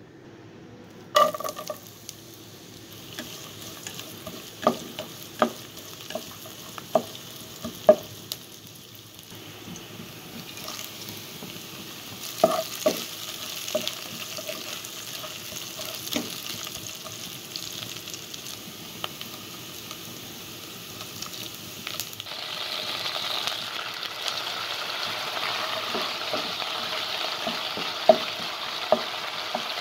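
Sliced onions and bay leaves frying in hot oil in a non-stick kadai: a steady sizzle that starts suddenly about a second in, with the spatula knocking and scraping against the pan in sharp clicks as they are stirred. The sizzle grows louder and brighter about two-thirds of the way through.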